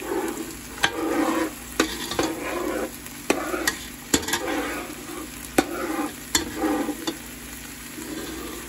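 A metal slotted spatula stirs and scrapes onions and habanero pepper around a frying pan of sizzling oil, with sharp clicks as it knocks against the pan. The strokes stop about seven seconds in, leaving the steady sizzle.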